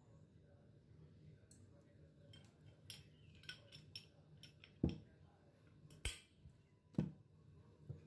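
Glass bottles being handled and set down on a table: a scatter of small clicks and knocks, with three sharper knocks in the second half.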